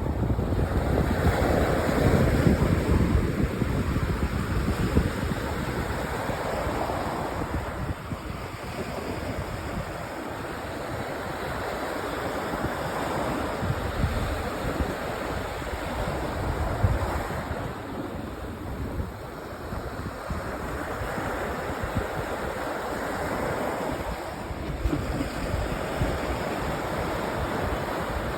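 Sea waves breaking and washing up on a sandy beach, the surf swelling and ebbing every several seconds, with some wind rumble on the microphone.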